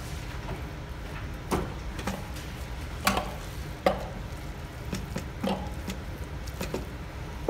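A spatula scrapes and knocks against a food processor bowl as a thick, chunky chickpea-loaf mixture is scooped out into a loaf pan. A handful of short taps and scrapes come a second or so apart over a steady low hum.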